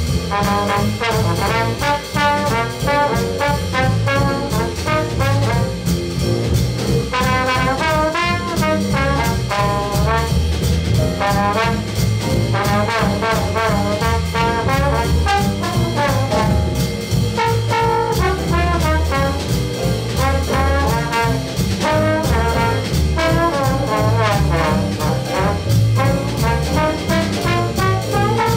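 Jazz big band playing a swing tune, with a trombone soloing over the band and an upright bass underneath.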